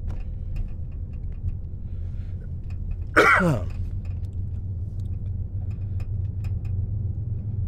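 Steady low rumble of a car driving slowly on a paved road, heard from inside the cabin. About three seconds in, a person briefly clears their throat.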